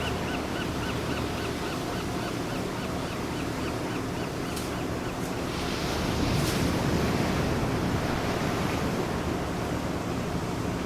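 Steady wind rushing over the microphone outdoors, with a faint chirp repeated about three times a second through the first few seconds and a few faint clicks around the middle.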